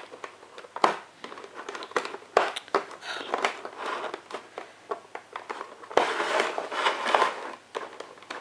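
Clear plastic packaging tray crinkling and clicking as a makeup brush is worked loose from its tight slot, with a louder stretch of crackling about six seconds in.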